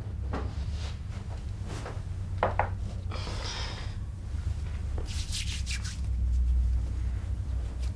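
Cloth rustling and rubbing with a few soft knocks, as a woman in a long robe and head covering moves and sits down on a bed, over a low steady hum.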